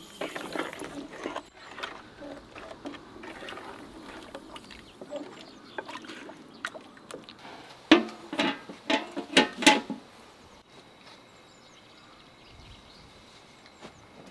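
Peach juice sloshing as sugar is stirred into it in a large pot, then a metal lid clanks against the aluminium pot several times in quick succession about eight seconds in, as it is set on.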